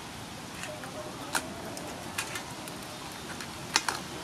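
Hard crab shells clacking against each other and the aluminium pot as hands shift the crabs: about five sharp, irregular clacks, the loudest about a second and a half in and near the end.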